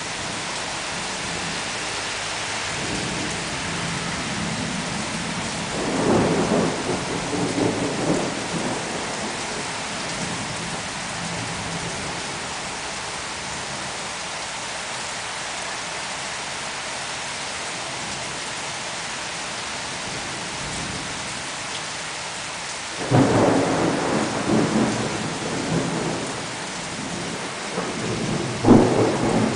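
Thunderstorm: steady rain with thunder. One rumble swells about six seconds in. Near the end a sudden loud crack rolls into rumbling, and another sharp crack follows just before the close.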